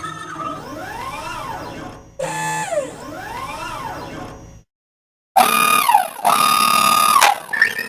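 Electronic UFO spaceship sound effect: pitched sweeps that rise and fall in arcs about every one and a half seconds, then a cut to silence about two-thirds through, followed by louder held tones that dip briefly in pitch.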